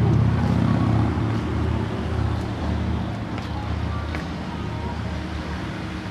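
A steady low motor drone, loudest at the start and slowly fading away.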